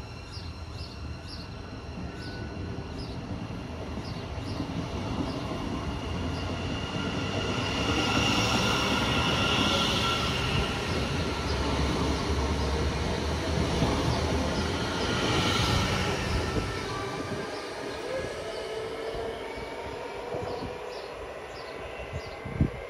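DB regional electric multiple-unit train pulling out and running past the platform. An electric whine is heard over steady wheel-on-rail noise, which builds to its loudest about halfway through as the cars pass close by, then fades as the train pulls away. A single sharp knock comes near the end.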